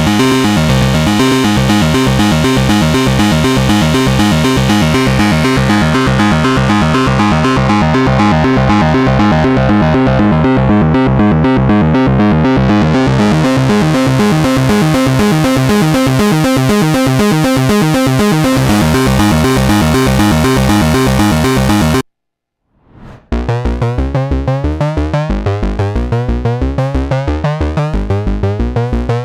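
Moog Subsequent 25 analogue synthesizer playing a fast arpeggio, its tone dulling and then brightening again midway. It stops about 22 seconds in, and after a second's pause a sequenced synth bass line starts with a pulsing rhythm.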